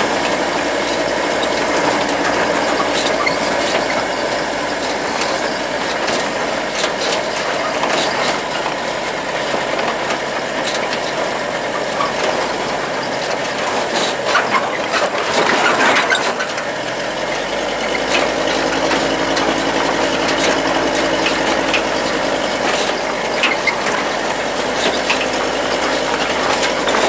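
GAZ-63 truck's six-cylinder side-valve engine running steadily, with many short clicks and rattles; its note changes about halfway through.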